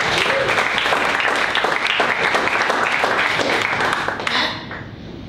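Audience applauding: a dense patter of many hands clapping that dies away about four seconds in.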